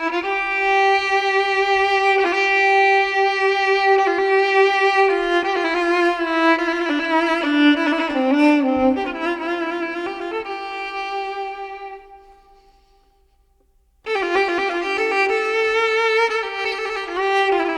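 Background music: a slow, sustained violin melody with vibrato. It fades out about twelve seconds in and starts again suddenly about two seconds later.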